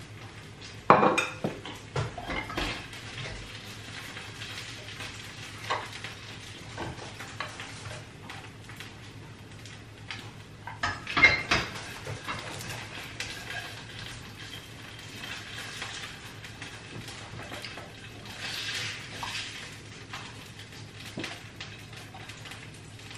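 A metal spatula clanking and scraping against a frying pan as pan-fried dumplings are lifted out onto a plate, with light sizzling. The loudest clanks come about a second in and again around eleven seconds in.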